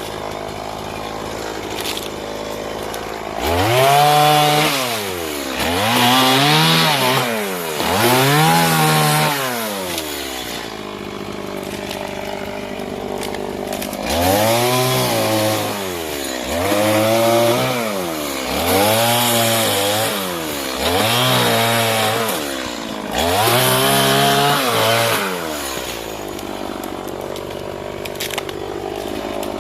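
Stihl MS 180 two-stroke chainsaw revved up and down again and again, each rise and fall lasting about two seconds. It runs in two spells of rapid throttle-ups, three and then five, and drops back to a steady idle between them.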